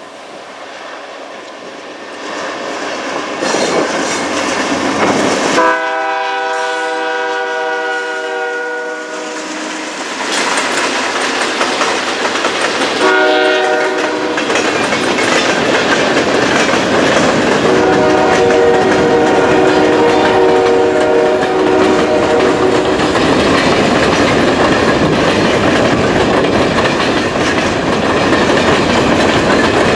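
Freight train led by three CN C44-9W diesel locomotives approaching in wind, its horn sounding a long blast about six seconds in, a short one around thirteen seconds and another long one around eighteen seconds. The train then passes close with a loud, steady rumble and clickety-clack of wheels on rail joints.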